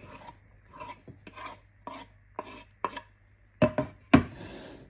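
Chopped vegetables being scraped off a wooden cutting board into a glass bowl: a series of short rasping scrapes about twice a second, then two louder knocks near the end.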